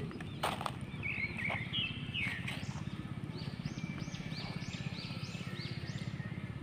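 Small birds calling: scattered chirps, then a quick run of rising-and-falling notes at about three a second in the second half, over a steady low pulsing hum.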